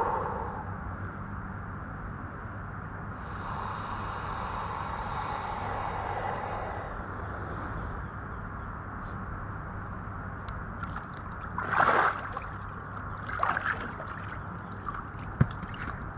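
A freediver's long, deep breath as he packs in air before a static apnea hold, then water sloshing and splashing, the loudest moment, as he rolls face down in the hot tub, with smaller splashes just after. A steady low hum sits underneath, and a few faint bird chirps come through.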